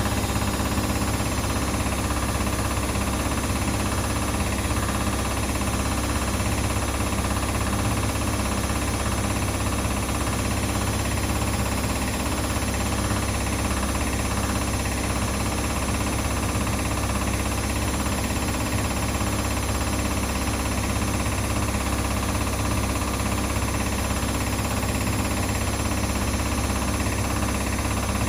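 Household laundry machines running: a steady, loud mechanical hum with vibration and several steady tones.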